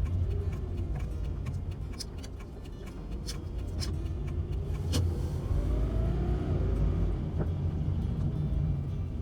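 Low, steady rumble of a van's engine and road noise heard from inside the cabin while driving, with a few sharp clicks and a faint tone that rises and then falls in the middle.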